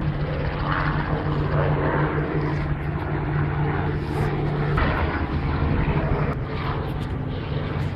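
A boat's engine idling, a steady low hum.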